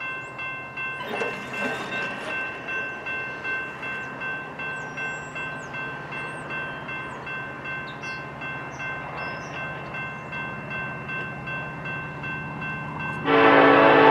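A bell ringing steadily about twice a second over a low steady hum as a train approaches. Near the end, the lead BNSF SD70ACe diesel locomotive sounds a loud horn chord.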